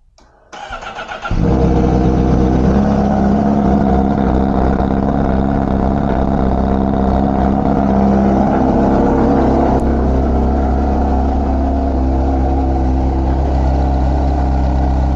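Honda CBR1000RR-R Fireblade's inline-four: the starter cranks for under a second, the engine catches, then it idles steadily.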